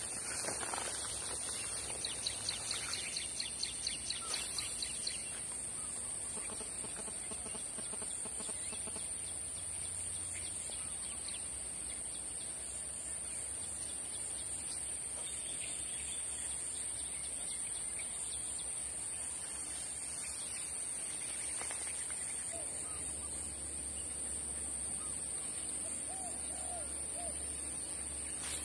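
Open-air bird calls over a steady high-pitched hum. A quick run of about ten repeated call notes comes a couple of seconds in, and a few short chirps come near the end.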